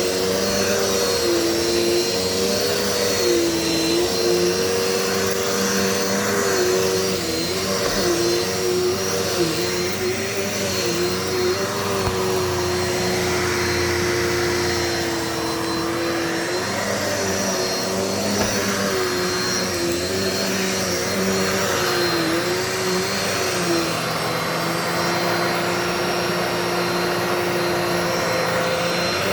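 Dirt Devil Multi-Surface vacuum cleaner running steadily while picking up dirt. Its motor whine holds one pitch but dips briefly several times throughout.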